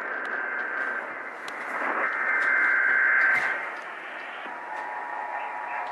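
Hiss and static from a radio receiver on a noisy, weak signal, with scattered crackles and a swell of louder noise about two to three and a half seconds in. A faint steady tone comes in under the hiss near the end.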